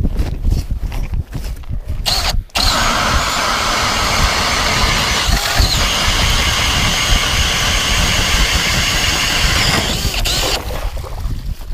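Milwaukee cordless drill spinning an ice auger, boring a hole through lake ice. A steady motor whine over a dense cutting noise starts about two and a half seconds in and stops about a second before the end.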